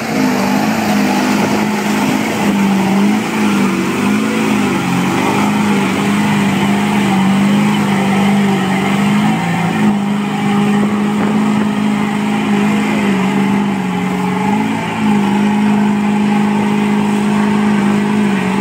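Old Ford F-series pickup's engine held at high, steady revs as its big mud tires churn in a deep mud pit, the pitch dipping briefly three times. The truck is bogging down and barely making headway.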